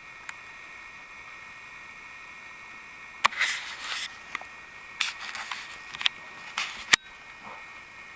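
Handheld camera being moved about: a cluster of rustles and knocks from about three seconds in, ending in a sharp click about seven seconds in, over a faint steady hum.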